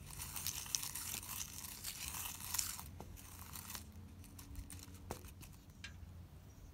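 Sequins being tipped out of a small plastic pack and sprinkled by hand into a plastic tub of slime, with the pack crinkling. It is a busy crackling for about three seconds, then thins to a few separate ticks.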